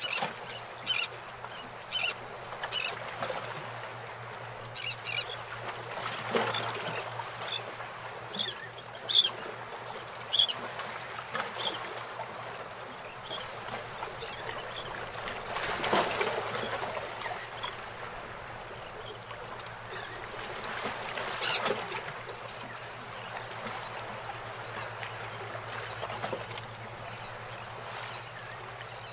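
Birds calling and chirping in short, high notes scattered throughout, with a quick run of calls about three quarters of the way through, over a steady low hum.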